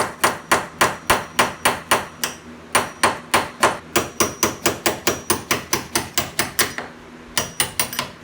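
Hammer striking a bushing-removal tool, metal on metal, to drive a worn factory door hinge bushing out of a Jeep Wrangler TJ's lower hinge knuckle. The bushing is stuck, which the owner puts down to more rust on the lower hinges. The strikes come quickly, about three or four a second, each with a slight ring, broken by two short pauses.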